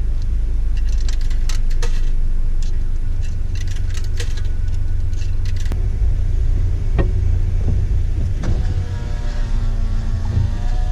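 A car driving, its steady low rumble loud throughout, with scattered sharp clicks in the first half and a brief pitched sound near the end.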